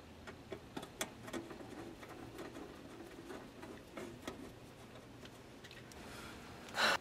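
Light irregular clicks and scrapes of a screwdriver turning a screw into the metal panel of a pool time-clock box. Near the end comes a short, loud rustle of clothing against the microphone.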